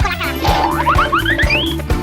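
Background music with a steady low beat, and a cartoon sound effect over it: from about half a second in, a quick run of short rising sweeps, each higher than the last.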